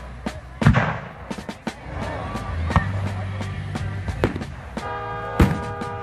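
Fireworks aerial shells bursting in a rapid series of sharp bangs and crackles over music. The loudest bangs come under a second in and again about five and a half seconds in.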